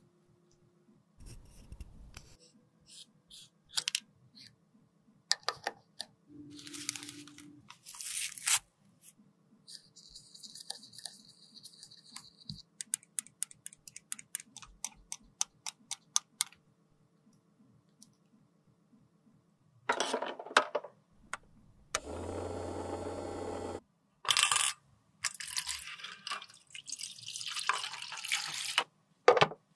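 Close-up handling of metal lipstick tubes: a run of small clicks and taps with wiping from a wet wipe. A steady rushing noise lasts about two seconds past the middle, and near the end water is poured into a stainless steel tray holding lipstick parts.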